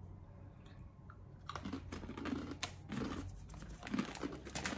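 Crisp crunching of rolled black-pepper tortilla chips (Taqueritos) being bitten and chewed, starting about a second and a half in.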